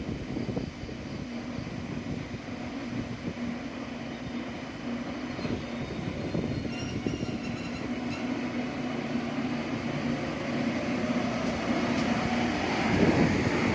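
Train approaching, its running noise and a steady low hum growing louder toward the end.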